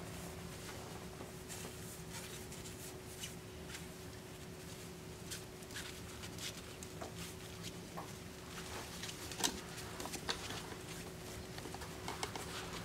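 A three-week-old Pembroke Welsh Corgi puppy's paws scrabbling and scraping on a fabric backdrop: a scatter of soft ticks and rustles, more frequent in the last few seconds, over a faint steady hum.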